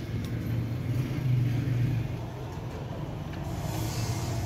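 Steady low motor hum with a few faint light taps.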